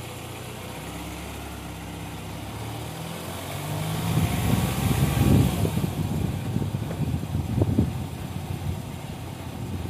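A motor vehicle engine running steadily, rising in pitch about four seconds in, followed by uneven low rumbling that grows louder through the second half.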